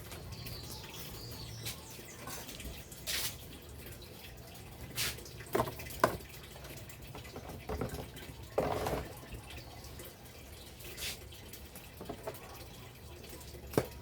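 Scattered knocks and clicks of small containers being handled and set down, with a short scraping rustle a little past the middle.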